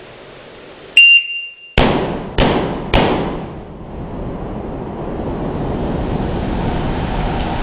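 Four shotgun shots from a Mossberg pump-action shotgun in quick succession, the last three about 0.6 s apart, each with a short echoing tail. A steady rushing noise follows.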